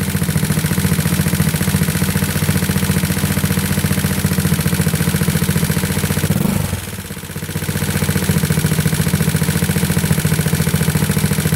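Single-cylinder four-stroke GY6 scooter engine, bored out with a 61 mm big-bore kit, running steadily at a warm idle. About six and a half seconds in the sound briefly drops away, then returns to its steady idle.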